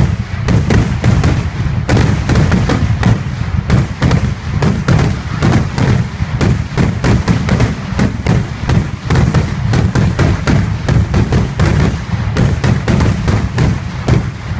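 Fireworks going off in a rapid barrage: sharp bangs and crackles, several a second without a break, over a low rumble.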